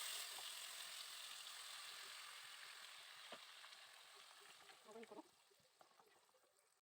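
Food sizzling in hot oil in a pan: a soft, steady hiss that starts loudest and gradually dies away, with a light clink about a third of the way in.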